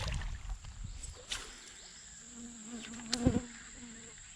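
A flying insect buzzes close by for about two seconds in the second half, over a steady high-pitched insect drone. Two short knocks come through, the louder one about three seconds in.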